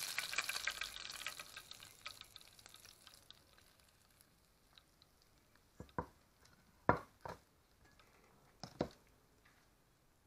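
Hot cooking oil sizzling around pieces of Pepsi fish (parrotfish) frying in a pot, the sizzle dying away over the first few seconds as the fried fish is lifted out. Then a few sharp clinks of a metal fork against a metal bowl, about six to nine seconds in.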